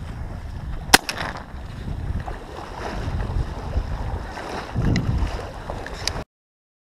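A single shotgun shot about a second in, sharp and loud, over steady wind buffeting the microphone and water lapping at the boat. A couple of fainter clicks come later, and the sound cuts off abruptly near the end.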